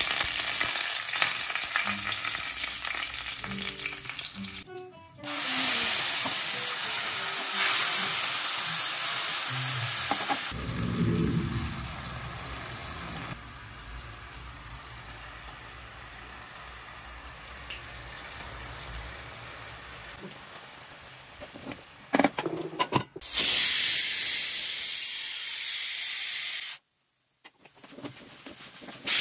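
Hot oil sizzling in a pan as whole spices and dried red chilies fry, then leafy greens frying as they are stirred with a wooden spatula. The sizzle comes in cut-together stretches, quieter in the middle and loudest near the end.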